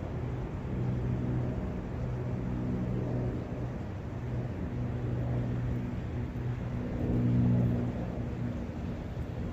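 Forest brook ambience: running water under a low, steady motor hum that swells about seven seconds in.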